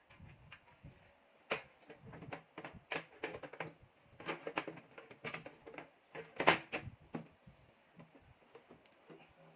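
A run of irregular sharp clicks and knocks from hard computer parts being handled and fitted in a desktop PC case. The loudest knock comes a little past halfway, and it is quieter near the end.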